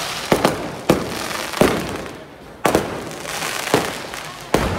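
Firecrackers going off in a string of about seven sharp bangs at uneven intervals, each trailing off over a steady crackling haze.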